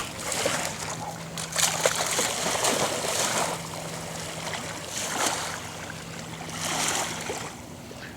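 River water splashing and lapping, swelling and fading in surges every couple of seconds.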